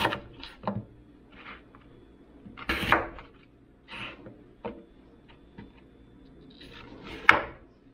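Household handling sounds, probably in a kitchen: a run of separate knocks and short clatters as things are set down and moved, with a longer, louder clatter about three seconds in and a sharp knock near the end.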